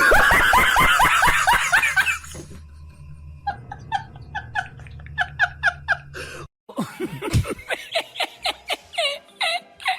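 Recorded laughing sound effects, one after another. A loud, dense burst of laughter comes first, then a rhythmic 'ha-ha-ha' laugh of evenly spaced pulses with a low hum under it, and after a sudden break another laugh of quick pulsed syllables.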